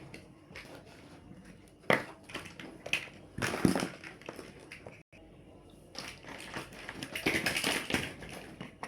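Plastic building blocks clicking and clattering as they are handled and pressed together: a sharp click about two seconds in, a burst of rattling a little later, and more clattering near the end.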